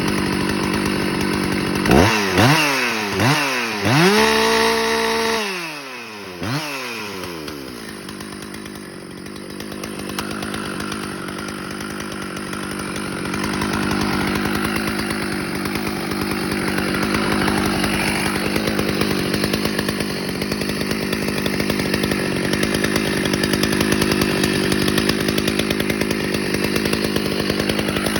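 Husqvarna 288XP two-stroke chainsaw idling, blipped up to speed several times about two seconds in, then held at full revs for a second or so before dropping back to a steady idle.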